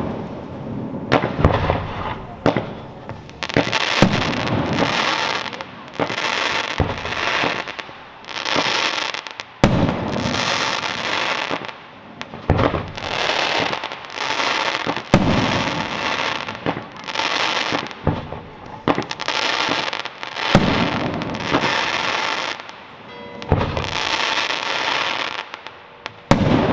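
Fireworks display: a rapid series of aerial bursts, each sharp bang followed by about a second of dense trailing noise. The bursts repeat every second or two without a break.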